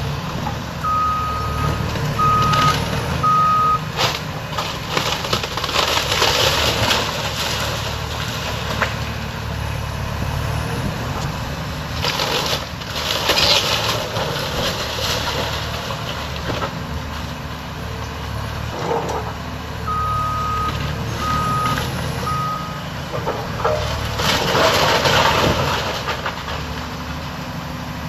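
Caterpillar excavator's diesel engine running under load as it tears into a wood-frame house, with stretches of crunching, splintering wood and falling debris, the loudest near the middle and near the end. A backup alarm sounds three short beeps near the start and again about two-thirds through.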